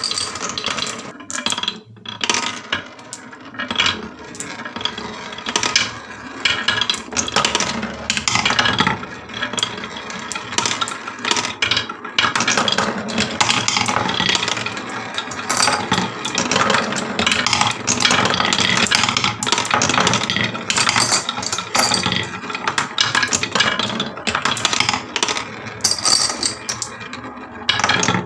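Many glass marbles rolling and clattering down HABA wooden marble-run slopes, a dense, continuous patter of rapid clicks and knocks.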